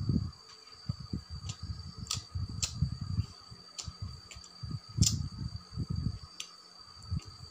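Close-miked chewing of a mouthful of rice and cooked greens: a run of soft, low chewing sounds with a few sharp wet mouth clicks, the loudest about five seconds in. A steady high tone runs underneath.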